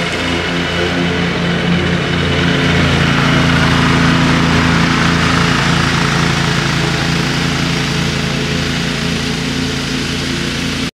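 Walker ride-on mower's engine running steadily as it mows, growing louder over the first four seconds or so as it comes up close, then easing off a little.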